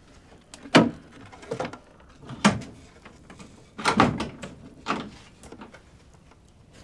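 A series of heavy thumps and knocks, about one a second, some doubled.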